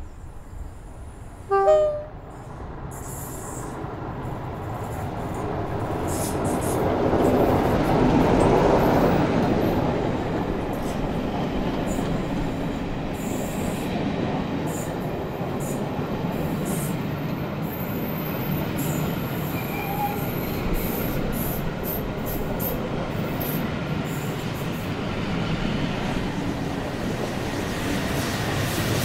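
GWR Castle class steam locomotive 7029 Clun Castle running past on the rails. A short horn-like blast comes about two seconds in; the rumble and clatter then swell to their loudest about eight seconds in and run on, with sharp metallic squeals and clicks.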